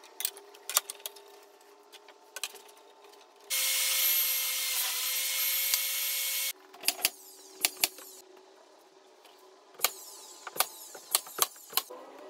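Table saw running for about three seconds, its pitch sagging slightly partway through as the blade takes a cut in a board, then stopping abruptly. Light clicks and knocks of wood being handled come before and after.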